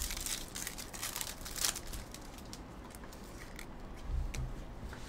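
Trading cards and card-pack wrappers being handled: crisp crinkling and rustling, busiest in the first two seconds with one sharp crackle, then quieter.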